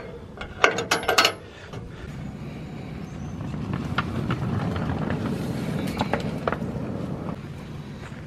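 Sharp metal clanks of a wagon coupling being worked, then a small loaded wagon rolling along 7¼-inch gauge track, its steel wheels giving a low rumble with a few clicks over the rail joints.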